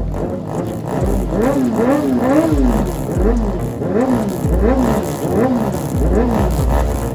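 Yamaha R6's inline-four engine revved in quick repeated blips through an aftermarket exhaust, its pitch rising and falling over and over, about one and a half times a second.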